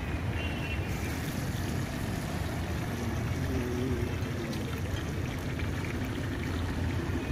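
Medu vada frying in a wok of hot oil over a gas burner: a steady sizzling hiss over a constant low rumble.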